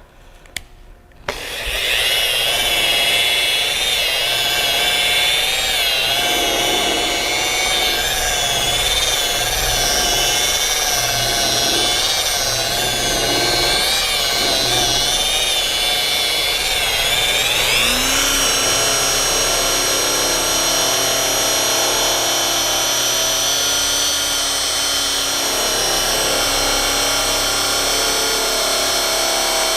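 Rotary polisher running with cutting compound on single-stage car paint. It starts about a second in at low speed, its whine wavering under load while the compound is spread. About two-thirds of the way through it is sped up, with a rising whine, to a higher, steadier working speed for the cutting pass.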